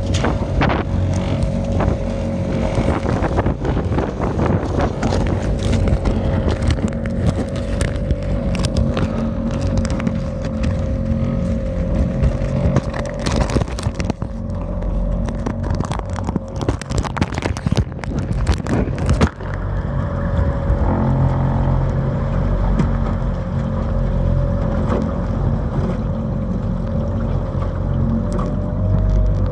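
A steady motor drone with a constant whine, overlaid with scraping and rubbing as the covered camera moves against plastic. The scraping thins out about two-thirds of the way through, leaving the drone.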